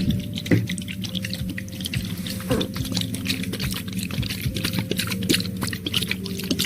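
Wet, sticky ASMR clicks and squelches, many small ones in quick irregular succession, over a steady low drone.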